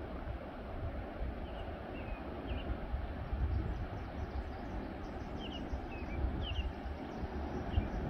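Steady wash of ocean surf with wind rumbling on the microphone, while small birds give short high chirps several times.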